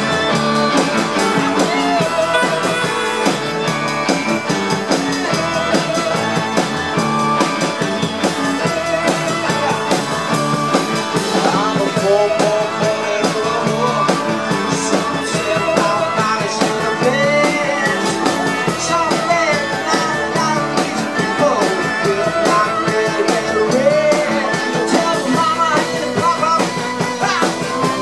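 Live rock band playing: electric bass, electric guitar, drum kit and keyboard, with a man singing lead into a microphone.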